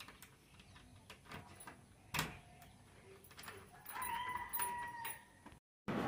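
uPVC door handle and lock mechanism being worked: scattered light clicks and one sharp clack about two seconds in. A short, steady high tone sounds for about a second from about four seconds in.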